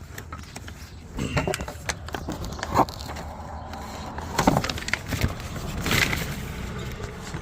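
Irregular scrapes, clicks and knocks of a hand and tools working inside a pickup truck's door, trying to free the door latch's electrical connector, with a few louder knocks.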